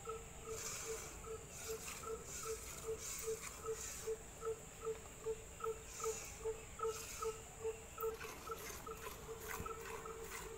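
A cow being hand-milked into a steel pail: jets of milk strike the pail in a steady rhythm, about two or three squirts a second, each giving a short pitched ring. Near the end the squirts come closer together.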